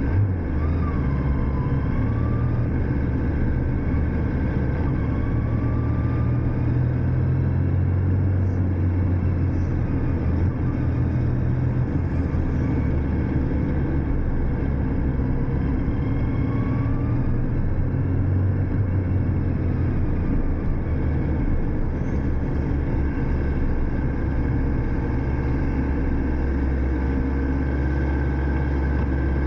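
Vehicle engine running steadily at a low, even pitch under a constant rushing noise, with no revving.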